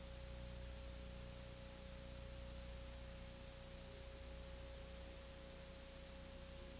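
Faint recording hiss and low electrical hum, with a thin steady tone above them: the background noise of an old videotape transfer with nothing else playing.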